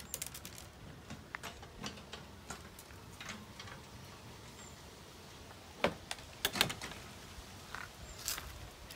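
Faint, scattered light clicks and taps over a quiet background, with a few sharper clicks about six seconds in.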